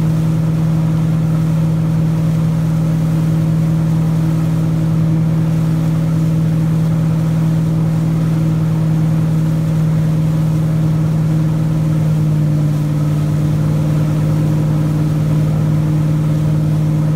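A wake boat's engine running steadily at wakesurfing speed, a constant low drone over the rush of water, its note changing slightly about twelve seconds in.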